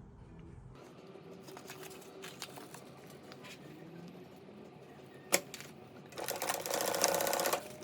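Faint handling of stiff fabric under the presser foot, a sharp click a little after five seconds in, then a sewing machine stitching in one short run of about a second and a half near the end.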